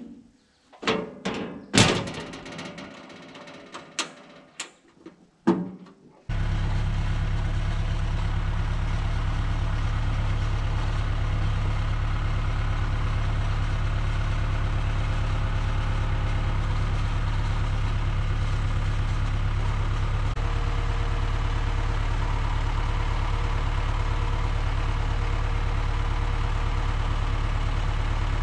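Several sharp knocks and clanks, then from about six seconds in an engine idling steadily.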